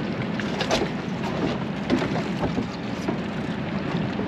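Steady low hum aboard a sportfishing boat, with wind and water noise and a few short knocks.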